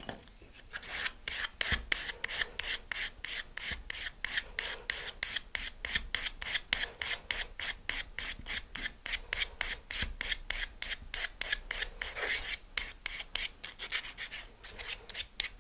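Small laser-cut plywood disc being sanded by hand on a sandpaper sanding block: quick, even back-and-forth strokes, about three a second.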